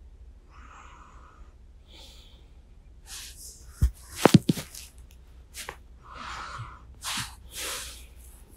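Close-miked breaths, sniffs and sighs of a sleepy person on a binaural microphone, with a cluster of sharp clicks and knocks about four seconds in.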